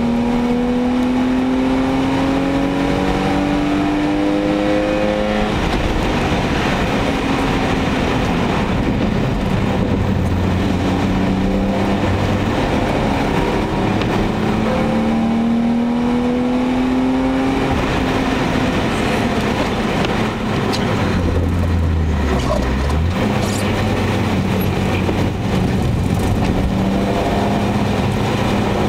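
BMW E34 525i's 2.5-litre M50 straight-six heard from inside the cabin under hard acceleration on track. Its pitch climbs and drops sharply at a gear change about five seconds in, climbs again, falls back and stays low around eighteen to twenty-three seconds in, then rises once more near the end. Steady road and wind noise runs beneath it.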